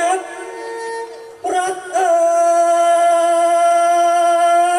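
Likay singing through a stage microphone: after a short phrase and a brief break about a second and a half in, the singer holds one long, steady note that wavers as it starts.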